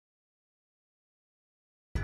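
Dead silence with no sound at all, then background music cuts in suddenly at the very end.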